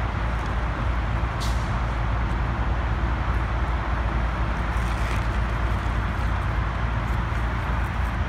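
Steady outdoor noise: a deep rumble with a hiss over it, and a couple of faint clicks about a second and a half and five seconds in.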